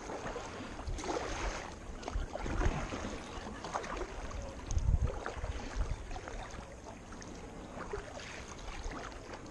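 Kayak paddle strokes: the blades dipping and splashing into the water on alternate sides at about one stroke a second, with water sloshing around the kayak. A louder low thump comes about five seconds in.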